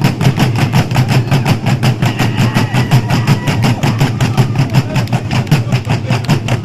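Traditional Burundian drumming: many drums struck together in a fast, even beat of about six strokes a second, deep and booming.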